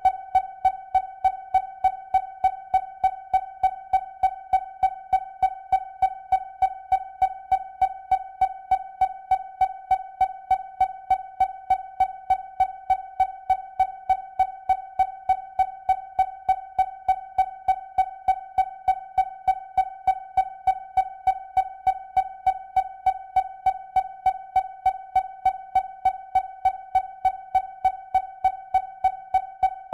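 Synthesized electronic sound effect: one steady mid-pitched tone pulsing in sharp, even beats about three times a second.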